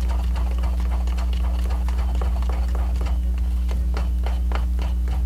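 A spoon stirring a runny treacle-and-egg mixture in a small bowl, clicking and scraping against the bowl's sides in a quick, fairly even rhythm of about three to four clicks a second. A steady low hum runs underneath.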